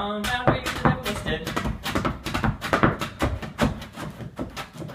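Flat-footing dancer's shoes striking a wooden dance board in quick percussive steps, thinning out and stopping near the end.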